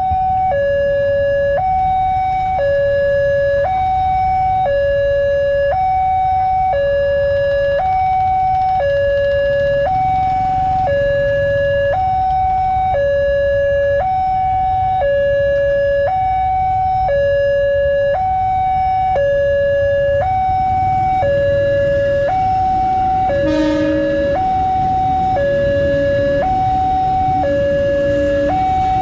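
Railway level-crossing warning alarm sounding a two-tone signal, alternating between a higher and a lower electronic tone about once a second while the barrier is down for an approaching train. A brief sharp clatter occurs about two-thirds of the way through.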